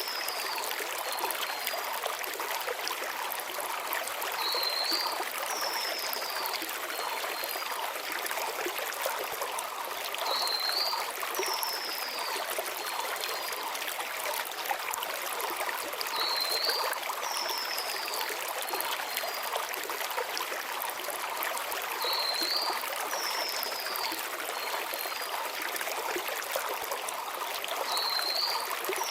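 Shallow mountain stream running steadily over stones, with a small bird's phrase repeating about every six seconds: a short rising note, a falling whistle, then two faint ticks.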